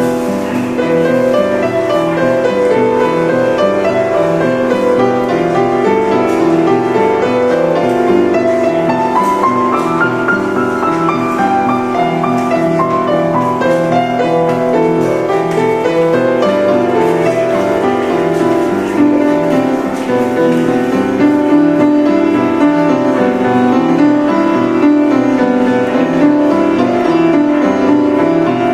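Upright piano played continuously with both hands: a steady stream of notes over sustained chords.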